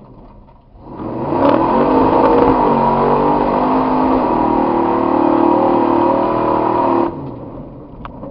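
Ford 4x4 mud truck's engine revving hard as it drives through a mud pit: revs climb sharply about a second in, are held high with a couple of shifts in pitch, then drop off suddenly about seven seconds in.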